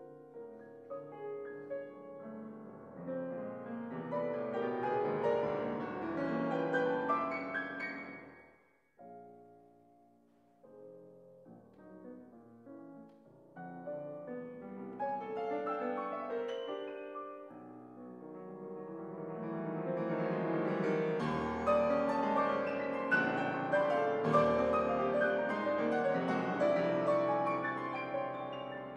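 Steinway grand piano played solo, with dense passages that build to a loud peak, break off abruptly about eight seconds in to a quiet stretch, then build again to a louder, fuller climax that eases off near the end.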